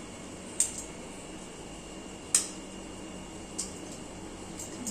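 A few sharp, short clicks or taps, spaced a second or so apart, over a steady background hum.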